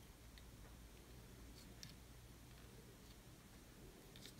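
Near silence: room tone with a few faint, small clicks from hands handling the thread bobbin and materials at a fly-tying vise.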